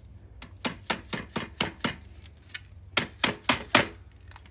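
Two runs of sharp taps or knocks while the muffler patch is being worked: about six light ones at roughly four a second in the first two seconds, then four louder ones in quick succession near the end.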